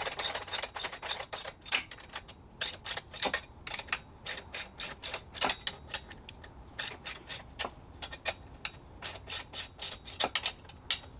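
Hand socket ratchet clicking in quick runs of back-strokes as nuts are tightened down.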